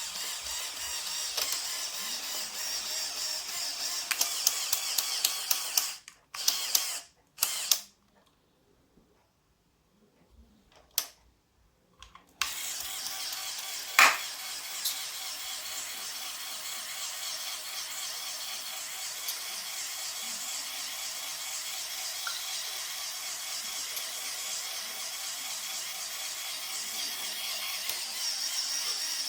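Lego Technic Power Functions electric motor driving the model's plastic gears, a steady whirring grind. About six seconds in it stops, starts twice briefly and falls silent for several seconds, then runs on steadily, with one sharp click a couple of seconds after it restarts.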